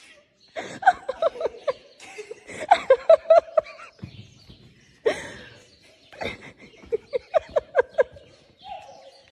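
Several bouts of laughter, each a quick run of short 'ha' pulses.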